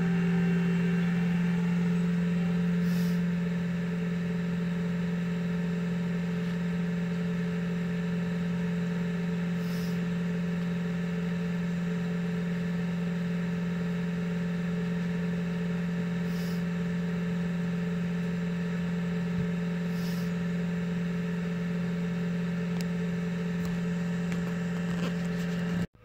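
Steady low hum of a parked car running, heard from inside its cabin, with fainter steady tones above it and an unchanging level; it cuts off suddenly right at the end.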